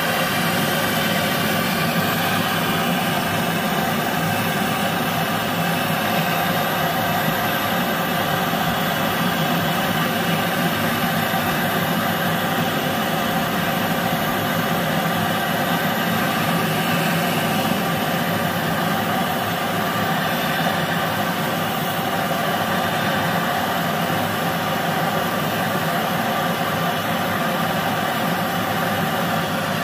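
A machine running steadily with an even, unchanging drone.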